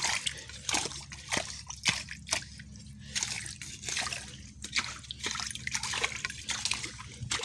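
Shallow muddy water sloshing and splashing in quick, irregular strokes as a bolo is scraped through the mud beneath it, in a search for freshwater clams.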